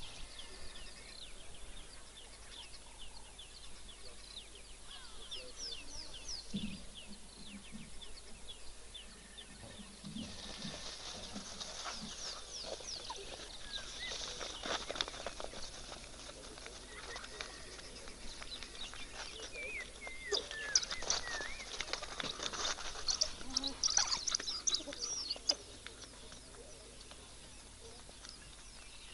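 African wild dogs twittering: high-pitched chirps, sparse at first, then a dense, louder run of excited calls that stops suddenly near the end.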